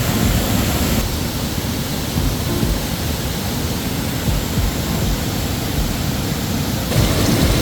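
A river rushing over rocks: a steady, even noise of flowing water.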